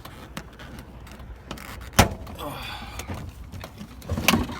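Honda Civic door trim panel being pried off the door: a series of sharp plastic clicks and knocks as its retaining clips give, the loudest about two seconds in, with a short scrape after it and a cluster of knocks near the end.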